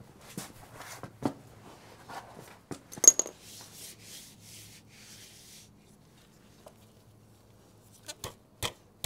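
Plastic motorcycle fairing panel being worked loose by hand: scattered clicks and knocks, one sharp click about three seconds in, and a couple of seconds of rubbing and scraping. Near the end, a regular run of sharp taps, about two a second, begins.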